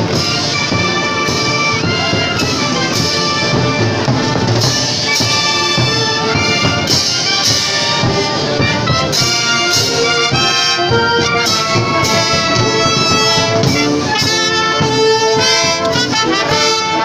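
Marching band of trombones, trumpets, saxophones and tuba playing a parade march with a steady drum beat, passing close by.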